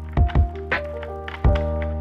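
Background music with a steady beat: deep kick drum hits, lighter snare strikes and held bass and chord notes.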